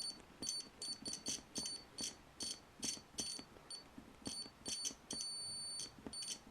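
Multimeter continuity buzzer giving short high beeps, two or three a second, as a keyboard key switch is pressed and released, with a faint click at each press. One longer beep comes about five seconds in, where the key is held down. The beeps show that the switch's contacts close, so the restored key is working.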